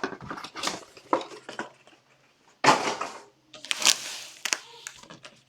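Crinkling and rustling of packaging as a hobby box of football trading cards is opened by hand. It comes in irregular short bursts, the loudest two near the middle.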